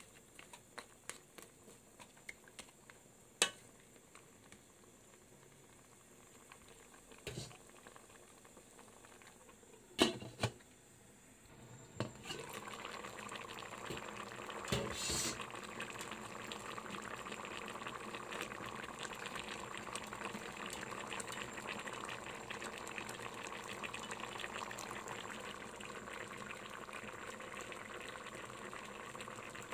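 Coconut milk sauce with shrimp in a pot: a wooden spatula stirs and knocks against the pot a few times, then about twelve seconds in the sauce comes up to a steady bubbling boil that carries on.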